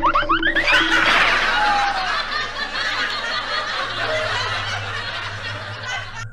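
A few quick rising whistle-like glides, then prolonged snickering and laughter, a comic laugh sound effect that cuts off abruptly at the end.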